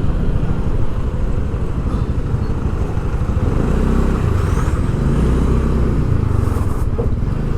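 Engine and road noise of a vehicle on the move: a steady, loud low rumble.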